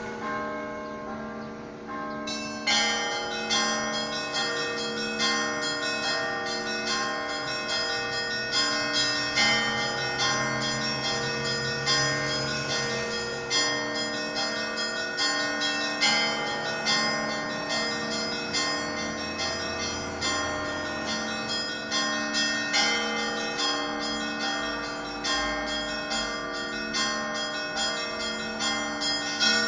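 Russian Orthodox cathedral bells being rung by hand in a continuous peal: a low bell sounding again and again under a busy, repeating pattern of smaller bells. The higher bells join in fully about two and a half seconds in.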